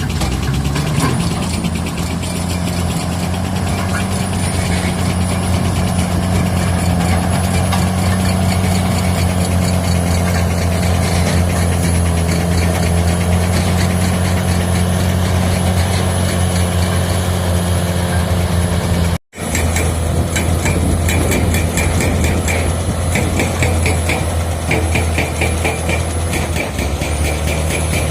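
Heavy diesel engine of an earthmoving machine running steadily under work, with a deep, constant drone. The sound cuts out for an instant about two-thirds through, and afterwards a fast, even clattering rides over the engine.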